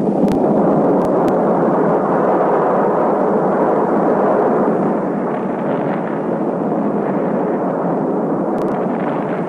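Nuclear explosion soundtrack: a long, steady roaring rumble that eases slightly about halfway through, with a few faint clicks.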